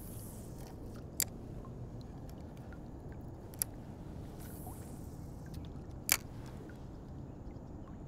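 Steady low outdoor rumble with three sharp taps, about one, three and a half and six seconds in; the last tap is the loudest.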